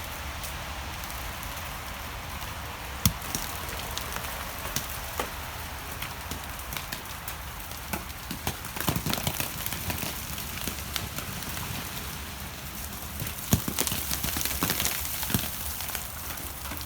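Meltwater from thawing ice and snow dripping and trickling: a steady wet hiss full of many small drips and ticks, with a few sharper drops, one about three seconds in and another about three-quarters of the way through.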